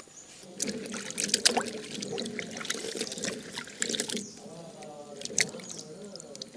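Water splashing and trickling in a steel pot as hands wash bilimbi fruit, with many small clicks and drips as the fruit is moved and lifted out.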